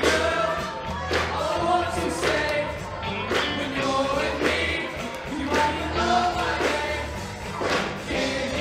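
Show choir singing a song over band accompaniment, with a steady bass line and drum beat underneath.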